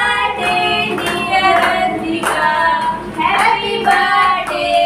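A woman and young children singing a song with held notes, with some hand clapping.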